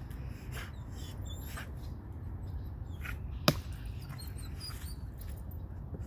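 Dogs moving through dry leaf litter around a fallen log, with scattered crackles and rustles and one sharp click about three and a half seconds in, over a steady low rumble.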